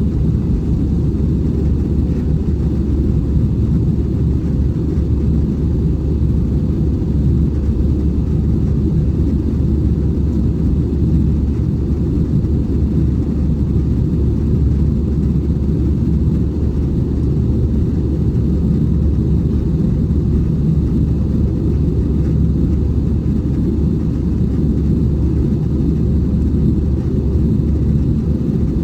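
Cabin noise inside an Airbus A320 in flight: a steady, loud low rumble of the engines and air rushing past the fuselage, unchanging throughout.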